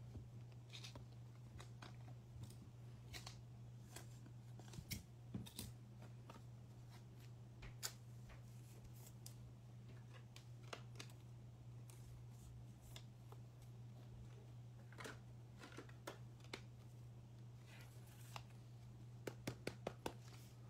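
Faint scattered clicks and light taps of trading cards being handled and sorted, over a steady low hum, with a quick run of clicks near the end.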